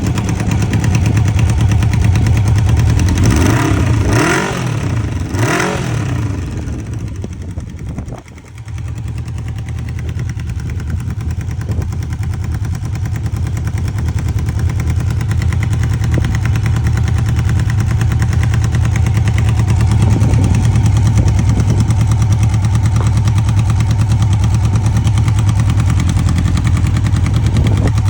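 1995 Honda CB750 Nighthawk's air-cooled inline-four engine, just started, revved twice a few seconds in, dropping briefly about eight seconds in, then idling steadily. The owner considers the engine sound bad.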